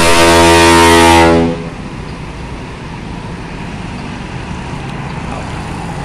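Roof-mounted ship horn (klakson kapal) on a Perkasa intercity bus sounding one long steady blast, which cuts off about a second and a half in. Steady engine and road noise from the bus follows.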